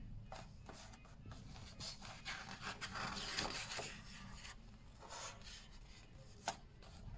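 Faint rubbing and rustling of paper as a hand slides over a picture book's pages and turns a page, with one short tap near the end.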